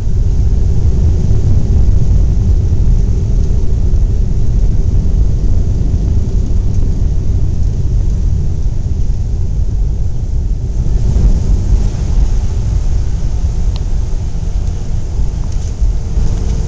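Heavy, steady low rumble inside the cabin of a Boeing 757-200 rolling out on the runway after touchdown. More hiss comes into the noise about eleven seconds in.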